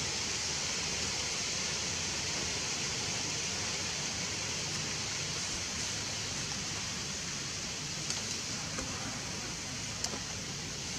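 Steady background hiss, with a few faint short ticks about eight and ten seconds in.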